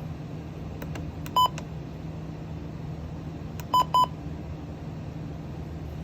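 Short electronic beeps from a weather radio receiver: one about a second and a half in, then a quick pair a little past the middle, over a steady low hum with no broadcast voice.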